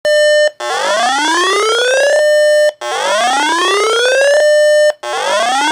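Electronic emergency alert tone announcing a severe thunderstorm warning. A buzzy held tone alternates with a whoop that sweeps upward for about a second and a half and levels off, cycling three times with brief silent gaps.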